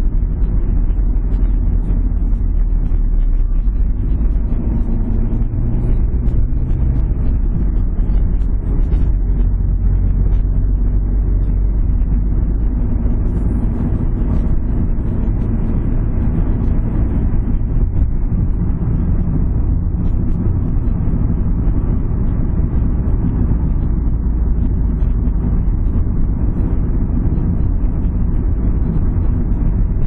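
Car driving along, heard from inside: a steady engine hum and road rumble, with no gear change or stop in this stretch.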